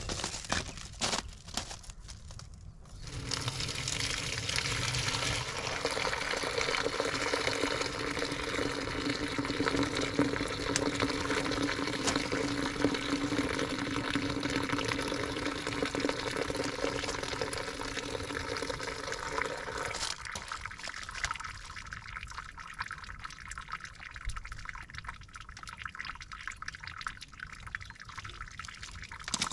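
Water pouring steadily into a container, starting about three seconds in. Around twenty seconds in the fuller, lower sound drops away and a thinner, hissier flow carries on.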